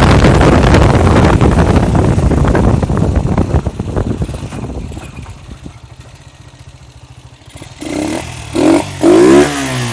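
Honda CG single-cylinder four-stroke motorcycle engine running with its air filter removed to make it louder: loud at first with wind on the microphone, dying down to a low idle, then revved in three quick throttle blips near the end, each rising and falling in pitch.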